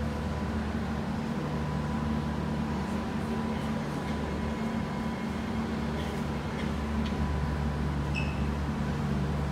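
Kawasaki C151B electric multiple unit standing at the platform, its onboard equipment giving a steady low electrical hum with a thin steady tone above it. About seven seconds in the low hum changes pitch and grows a little louder, and a short high chirp sounds near the end.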